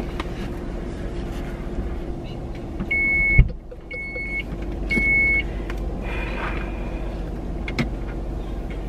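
Three short, high beeps about a second apart from a minivan's warning chime. A sharp thump comes just before the second beep. Under them is the steady low hum of the van's cabin.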